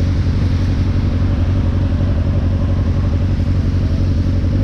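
Motorcycle engine running steadily while riding, mixed with wind and road noise.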